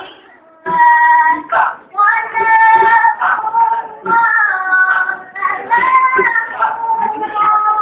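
A girl's voice singing a nasyid melody a cappella, holding long notes that slide between pitches. The singing picks up again after a short pause under a second in.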